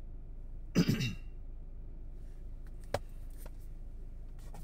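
A man clears his throat once, about a second in, followed by a sharp click and a few fainter clicks over a steady low background rumble.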